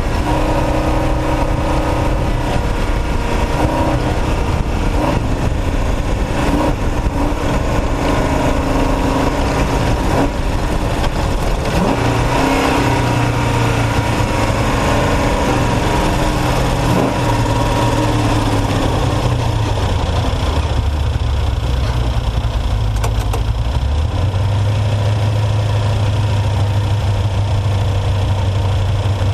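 Off-road race truck engine running hard, its revs stepping up and down, with a rattling, noisy wash over it. About twenty-four seconds in it settles into a steadier, lower note.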